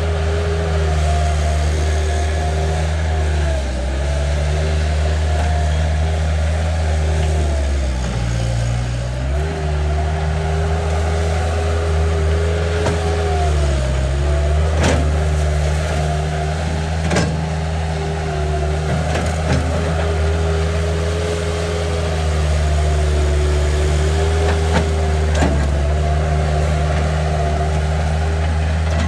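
Bobcat 773 skid steer loader's diesel engine running steadily, its pitch dipping briefly a few times, with a few sharp knocks.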